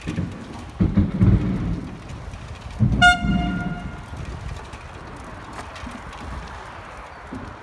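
Rumbling, knocking handling and wind noise on a phone microphone carried along a riverbank. About three seconds in there is a single short, high toot that fades away over about a second.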